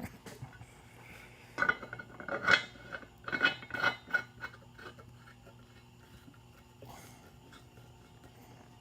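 Metal clinking and scraping as a 3/4-inch hose fitting is tightened into a drain port of the centrifuge base with a wrench: a cluster of sharp clinks between about one and a half and four seconds in, then only a faint steady hum.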